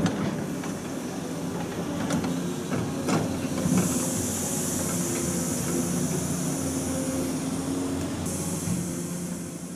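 Sawmill machinery running steadily, with a few sharp knocks and clanks in the first few seconds. A high hiss joins about four seconds in and cuts off sharply a second and a half before the end.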